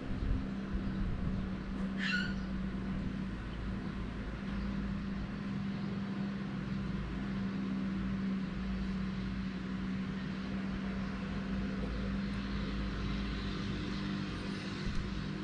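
Steady low background hum with a faint noise haze; a short falling chirp about two seconds in.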